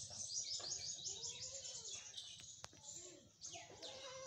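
Small birds chirping in a fast run of short, high notes, densest in the first two seconds and picking up again near the end.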